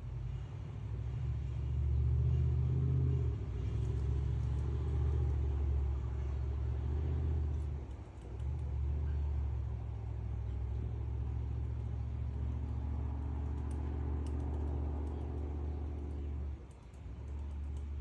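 Low, steady engine rumble of a motor vehicle running, dipping briefly about eight seconds in and again near the end.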